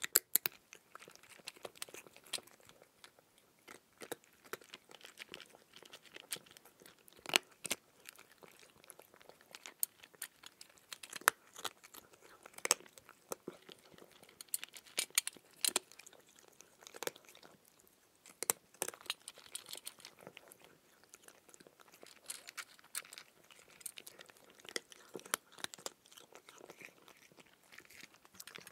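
A person chewing raw cucumber: irregular sharp crunches with quieter chewing between them.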